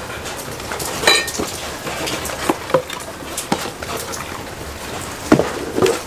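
Cardboard whisky gift box being handled and moved on a table: scattered light knocks, scrapes and rustles, with a couple of louder knocks near the end. Rain falls steadily in the background.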